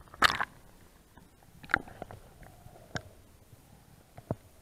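A camera plunging into the sea with a splash, the loudest sound, then muffled underwater knocks and clunks, a few sharp ones roughly a second apart.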